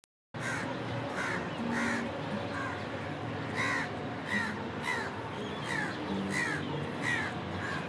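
Crows cawing repeatedly, about a dozen short calls that fall in pitch, over a steady background hiss.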